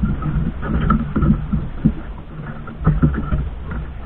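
Small outrigger fishing boat at sea: a continuous low rumble with water and wind noise, broken by irregular small knocks.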